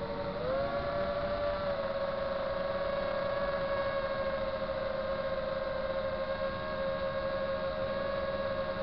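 FPV quadcopter's electric motors and propellers whining steadily, heard from the onboard camera; the pitch steps up about half a second in, then holds level.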